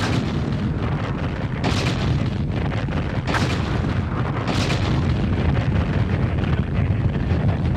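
Space Shuttle liftoff: the solid rocket boosters firing in a deep, continuous roaring rumble, with a few brief crackling flares.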